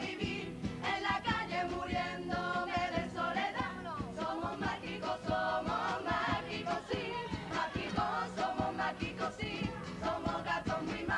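Carnival comparsa chorus singing in harmony over instrumental music with a steady drum beat.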